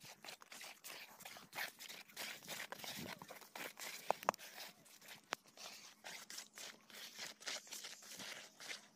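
Steel trowel scraping wet cement grout across a brick-tile floor: a run of short, gritty scrapes, with a few sharp clicks about four and five seconds in.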